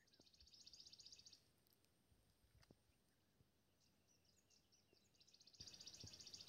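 A small bird singing a fast, high trill of rapidly repeated notes, faint, twice: once at the start and again near the end, with a few scattered chirps in between.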